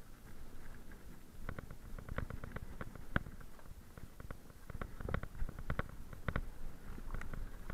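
Mountain bike ridden fast down a rocky trail: irregular knocks and rattles as the tyres and frame hit stones and roots, over a low rumble from the tyres rolling on dirt.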